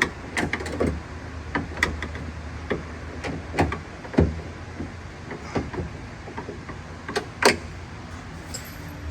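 Irregular clicks and knocks of screws, tools and parts being handled as the exterior door handle is fastened back onto a Chevy Tahoe door, with one sharper knock near the end. A low hum sits under the first half.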